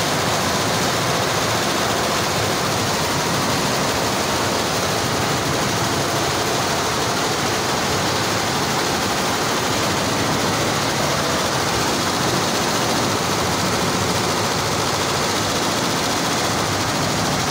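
Multi-head Maya embroidery machines running at high speed, a steady, even mechanical din with no change in level.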